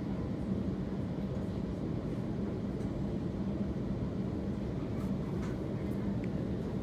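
Steady low hum inside a Sydney Trains electric train standing at a station platform with its doors open, with no traction noise.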